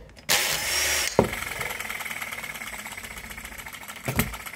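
Miniature Baker Monitor hit-and-miss model petrol engine being spun over by a power drill through a nylon cup. A loud rush of noise lasts just under a second and ends in a sharp click, then a steady, fast ticking follows as the engine turns over without running properly.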